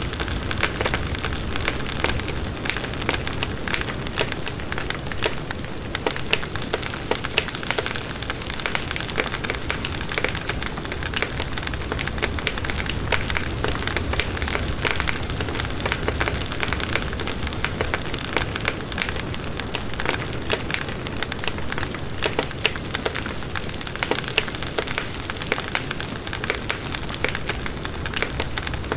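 Wood bonfire burning steadily, with dense, continuous crackling and frequent small pops.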